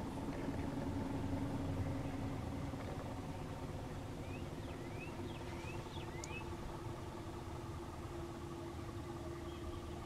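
A vehicle engine idling steadily with a low rumble and hum. In the middle a bird gives about five short rising chirps.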